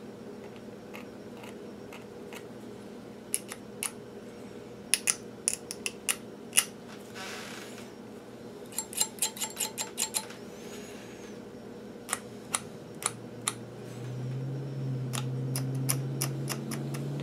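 Hobby knife scraping the enamel insulation off the copper magnet-wire leads of a toroid coil: irregular sharp clicks and short scrapes, with a quick run of ticks about nine seconds in. A steady low hum underneath grows louder about fourteen seconds in.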